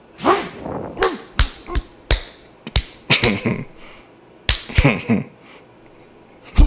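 Quick run of about ten dubbed punch and hit sound effects, sharp smacks with whooshing tails, in an irregular flurry for a comic fight.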